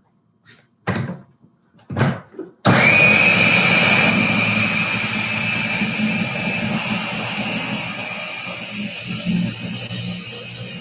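Countertop blender running, blending Oreo cookies and cream cheese into a cookie dough. After two brief bursts, it starts suddenly about three seconds in with a steady high whine and keeps running, slowly getting quieter.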